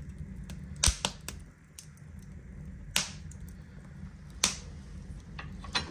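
Wood fire crackling in a cast-iron wood stove with its door open: a handful of sharp, irregular pops from the burning logs over a low steady hum.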